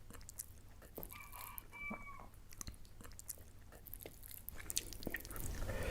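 A chicken calling twice, two short held notes close together about a second in, over scattered sharp clicks and smacks.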